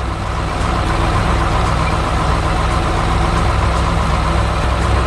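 Heavy truck engine running steadily with a low, even rumble: the engine of a cement mixer truck.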